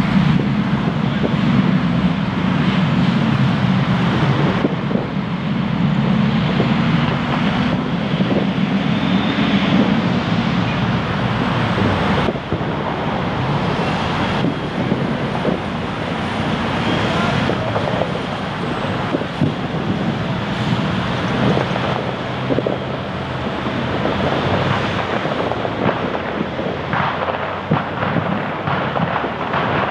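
Steady noise of wind and traffic with a low hum in the first ten seconds, and scattered sharp pops of distant fireworks in the second half.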